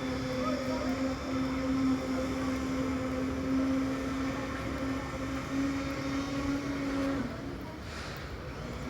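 Engine of a concrete mixer machine with lift running with a steady hum. About seven seconds in the hum cuts out and the sound gets a little quieter.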